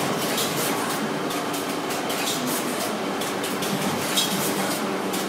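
Packaging machine running: a steady mechanical clatter with sharp clicks every half second or so.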